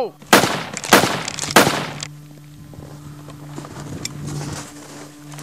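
Three loud gunshots about half a second apart, each with a short ringing tail, then a low steady music drone that sets in early and holds under faint scattered clicks.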